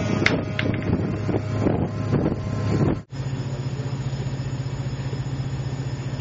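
Wind buffeting the microphone with a few handling clicks, then after a sudden cut a steady low machine throb that pulses rapidly and evenly.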